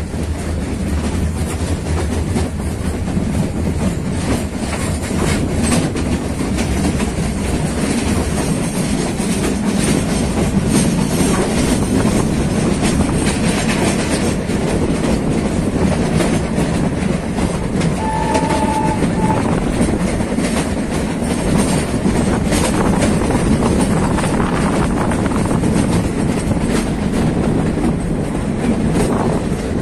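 Meter-gauge passenger train running, its wheels clicking steadily over the rail joints under a constant rumble. A short high tone sounds briefly about two-thirds of the way in.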